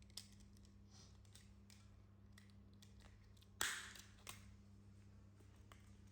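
Near silence over a steady low hum, with a few faint clicks and one sharper click and rustle about three and a half seconds in, followed by a smaller one.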